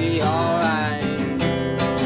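Steel-string acoustic guitar being strummed as song accompaniment, with a man's singing voice holding and bending a note through the first second.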